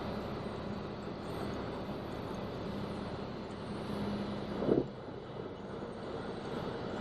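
A steady low engine hum over a noisy background, broken a little past halfway by one short loud thump, after which the hum drops away.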